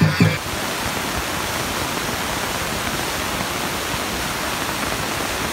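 Dance music with regular drum beats breaks off about half a second in, leaving a steady rushing hiss with no beat or tone.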